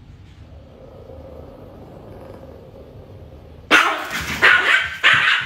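Small dog barking three times in quick succession near the end, loud and sudden, after a low steady background hum.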